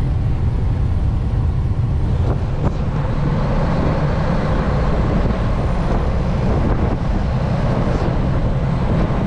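Steady low drone of a Western Star semi truck's diesel engine and road noise, heard inside the cab while driving, with a couple of faint clicks about two and a half seconds in.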